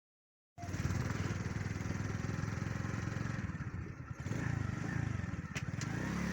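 Small outboard boat motor running steadily. It cuts in suddenly about half a second in and dips briefly near the middle.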